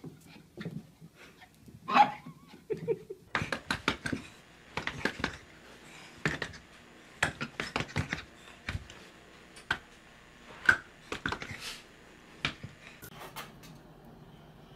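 Dog and cat at rough play: a short dog yelp about two seconds in, then a long run of sharp taps, knocks and scuffles.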